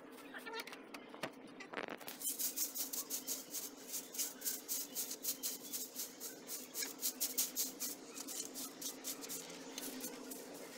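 Stiff twig broom sweeping dry straw bedding and dirt across a chicken-coop floor in quick short strokes, about three a second, starting about two seconds in. A faint steady hum runs underneath.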